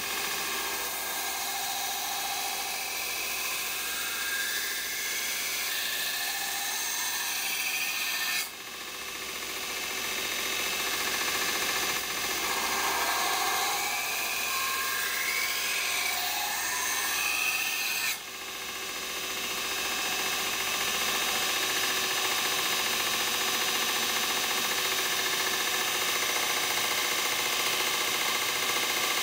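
Belt grinder running with an 80-grit Norton Blaze belt while a steel knife blade forged from a railway spike is ground against it. The sound dips suddenly twice, about eight and eighteen seconds in, then swells back.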